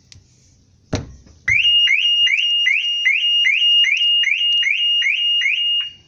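A hand thumps the car's tyre about a second in. Half a second later the Maruti Suzuki car's factory anti-theft alarm, set off by its shock sensor, sounds a loud, evenly repeating rising whoop, about two and a half times a second.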